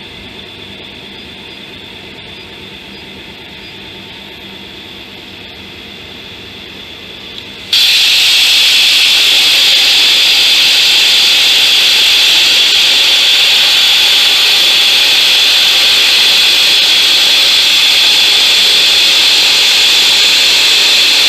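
A steady, moderate machine hum, then about eight seconds in a plasma cutter's arc starts suddenly with a loud, steady, high hiss as it cuts through metal.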